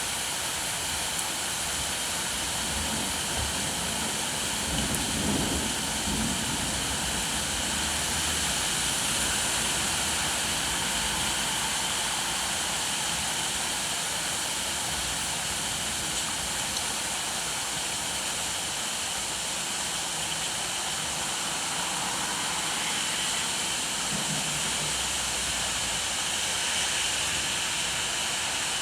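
Steady rain, an even hiss with no let-up. A brief low rumble rises under it about five seconds in and again near the end.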